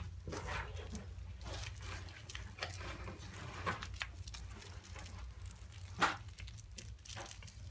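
Scattered soft taps and rustles of a cardboard cat scratcher as a cat noses and bumps into it, with a sharper knock about six seconds in, over a steady low room hum.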